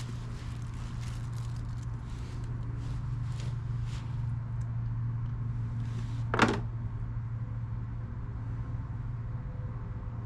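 Small metal clicks and taps of lawnmower carburetor parts and tools being handled, over a steady low hum, with one sharper click about six seconds in.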